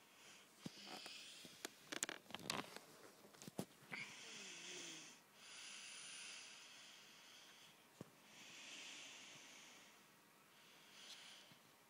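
Near silence with faint clicks and knocks in the first few seconds as a small netbook is handled and its lid opened, then slow swells of soft, breathy hiss close to the microphone.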